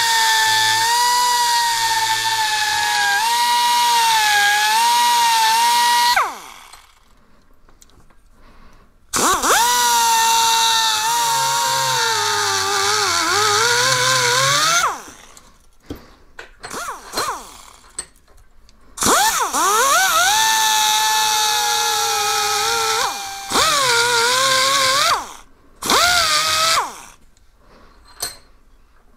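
Handheld rotary grinder with a carbide burr cutting a V-groove along a crack in an aluminium clutch housing to prepare it for TIG welding. Its high whine runs in several bursts, the longest about six seconds, and the pitch dips as the burr bites into the metal.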